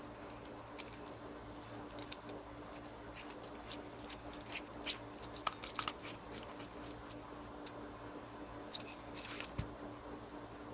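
Faint, irregular small metal clicks and ticks of a tool working on a deadbolt lock cylinder as it is taken apart, over a steady low hum.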